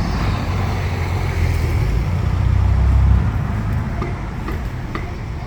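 Road vehicle driving past close by, its low engine and road rumble growing to a peak about three seconds in, then fading away.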